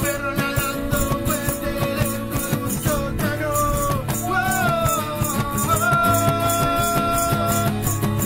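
Band of two guitars and a cajón playing, the cajón keeping a steady beat under strummed chords while a lead line of sliding notes runs on top, holding one long note near the end.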